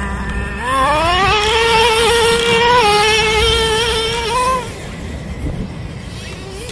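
Traxxas Slayer's 3.3 two-stroke nitro engine accelerating hard, its high, buzzing pitch climbing quickly and holding at high revs for about three seconds before the throttle comes off, about four and a half seconds in. It is fainter again near the end.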